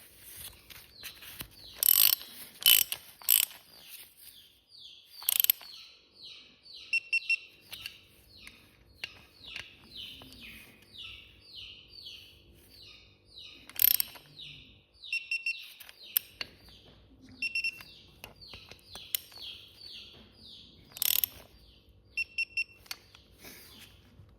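Ratchet of a torque wrench clicking in a long run of short, even back-and-forth strokes, about one every half second or so, as the oil filter cover bolts of a Yamaha WR450F are tightened. A few sharp, louder clicks come near the start, about halfway through and near the end.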